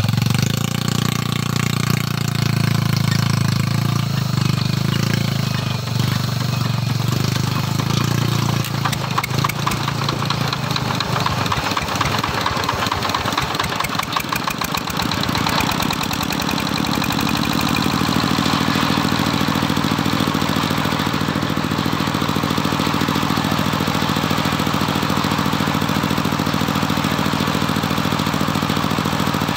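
Engine of a homemade circular sawmill running. About twelve seconds in, it clatters rapidly for a few seconds, then settles into a steady hum as the saw blade comes up to speed, not yet cutting.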